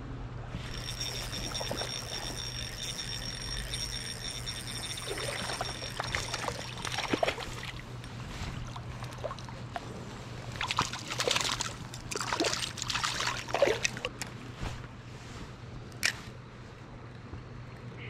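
Water splashing and dripping in irregular bursts, busiest about halfway through, with a single sharp splash or click near the end. A thin, steady high whine sounds for the first several seconds.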